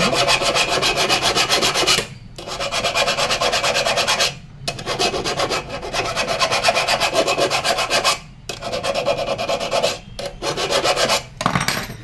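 Hand file rasping back and forth on a refrigerator compressor's copper pipe stub, in runs of quick, even strokes broken by a few short pauses. The file is cleaning the joint to bare metal ready for brazing.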